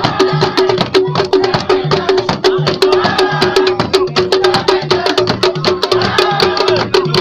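Live traditional drumming: a fast run of sharp strikes over a steady, pulsing low beat. Voices sing along in short stretches.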